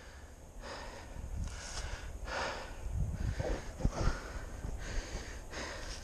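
A man breathing hard and fast, a run of heavy breaths in and out, with a few soft low thumps about halfway through.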